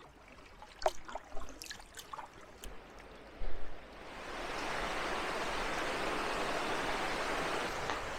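A few light drips and taps, then from about four seconds in a steady rush of flowing creek water.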